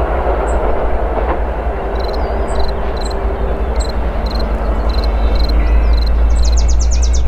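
Diesel-hauled passenger train with Comet coaches rolling slowly toward the listener: a steady low engine rumble with rail and wheel noise. Short high chirps repeat about twice a second over it, with a quick rapid run of them near the end.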